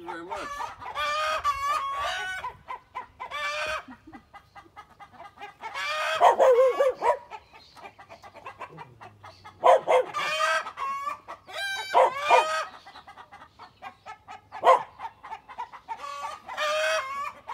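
Chickens clucking and crowing in a series of long, wavering calls, loudest about six, ten and twelve seconds in.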